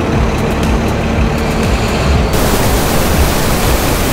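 Low rumble of a site dumper's engine running. About two seconds in, a steady hiss of rain cuts in suddenly.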